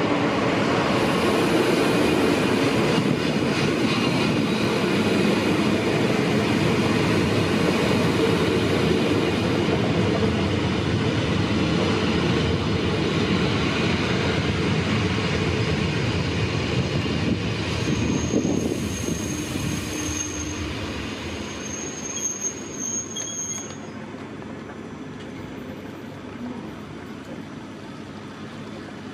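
BB 27300 electric locomotive and VB2N double-deck coaches rolling into the station and braking. The running noise fades steadily as the train slows to a stop, and a high brake squeal sounds about two-thirds of the way through.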